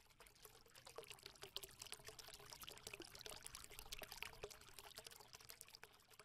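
Faint pouring, trickling water with many tiny crackles, swelling up and then fading away near the end.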